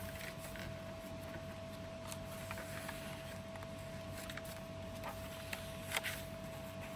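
Handling of a handmade paper junk journal: pages and paper pieces rustling, with small scattered taps and clicks and one sharper tap about six seconds in, over a faint steady hum.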